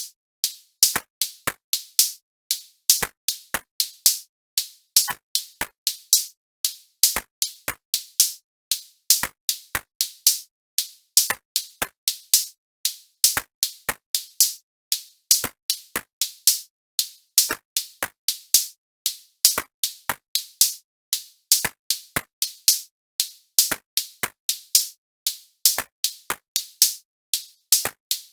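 Drum-machine beat: short, crisp, high-pitched clicky hits in a repeating pattern, a few a second, with nothing sounding between them.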